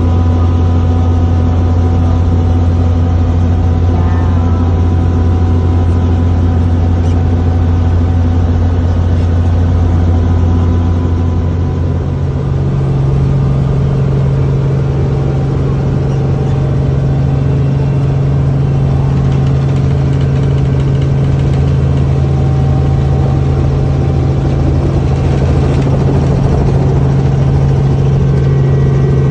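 Helicopter engine and rotor running steadily, heard from inside the cabin. About twelve seconds in, the deep hum steps up in pitch and holds there as the engine speeds up.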